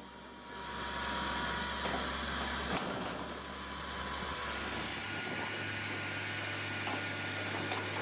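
A machine's motor running steadily, with a hiss and a low hum that shifts in pitch about 3 and 5 seconds in.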